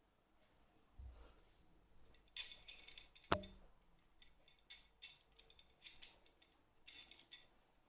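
Steel rifle parts being handled: light scraping and rattling, with one sharp metallic clink that rings briefly a little over three seconds in.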